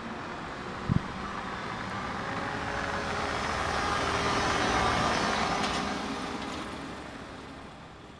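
Ice resurfacer running as it drives past, its engine and machinery growing louder toward the middle and then fading away. A short low thump about a second in.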